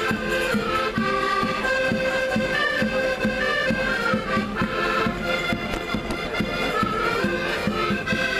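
Traditional Portuguese street band playing on the march: a held reed melody over a steady bass-drum beat.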